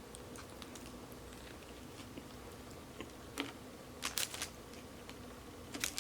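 Quiet eating: chewing with a few short, sharp mouth clicks and smacks, one about three and a half seconds in, a quick cluster around four seconds, and another near the end.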